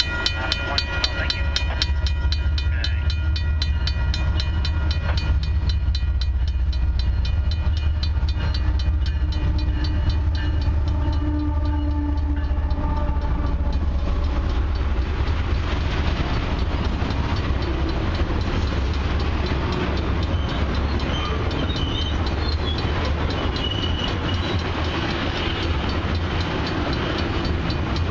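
A heavy freight train of loaded crude oil tank cars rolling past. In the first half a deep diesel rumble and steady ringing tones sound over the wheels. They fade about halfway through, leaving an even rush and clatter of steel wheels on rail.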